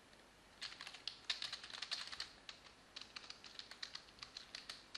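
Typing on a computer keyboard: quick, irregular keystrokes that start about half a second in and run on in short flurries.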